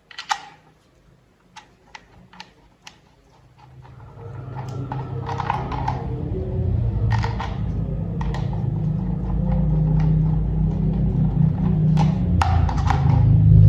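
Sharp plastic clicks and taps of toy parts being handled, spaced out at first. About four seconds in, a low steady hum starts and grows louder to the end, with further clicks over it.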